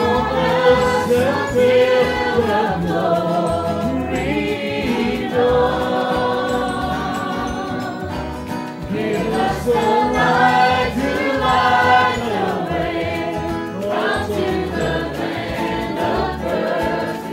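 Music with singing, the voices holding long notes.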